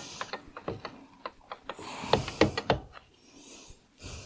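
Irregular light clicks and knocks of small parts being handled and fitted on a Vespa smallframe engine casing during assembly, loudest in a cluster about two seconds in.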